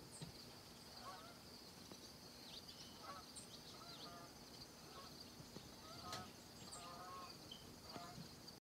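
Faint outdoor ambience of distant birds calling: short, honking calls repeating about once a second, with small high chirps over a faint steady high hiss.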